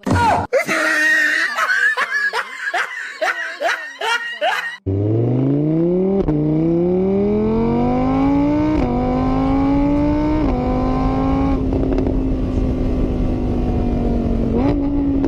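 A motor vehicle engine revving up, its pitch climbing in several steps for about six seconds and then holding steady. Before it come a few seconds of quick, high, wavering voice-like squeals and sharp clicks.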